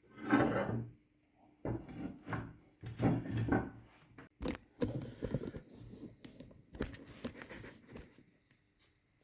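Irregular metallic knocks, clanks and scraping as steel box section is handled and clamped into a new corner welding vise.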